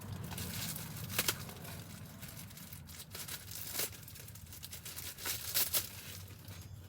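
Packaging crinkling and rustling in irregular short bursts as items are unwrapped by hand, over a steady low hum.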